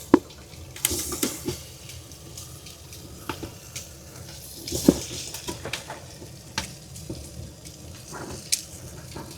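Meat and onions browning in a pot, sizzling steadily, with a utensil clicking and knocking against the pot every so often as they are stirred.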